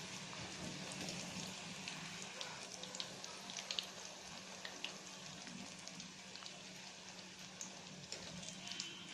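A spinach veggie puri deep-frying in hot oil in a kadhai: a steady sizzle scattered with many small crackles and pops.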